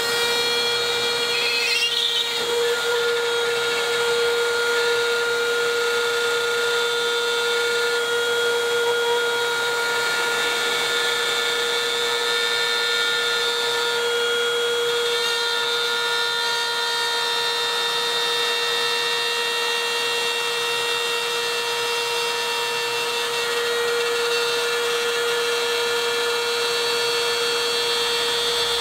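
Parkside PRSA 20-Li A1 cordless drywall cutter running at a steady, constant speed of about 30,000 rpm. Its 1/8-inch bit is routing a cut through a plasterboard panel, which gives a steady whine.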